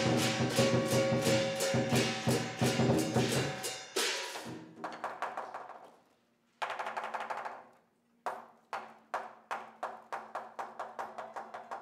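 Chinese lion-dance percussion, drum with crashing cymbals: fast, dense beating for about four seconds, dying away, a sudden short burst, then a steady beat of about two to three strokes a second.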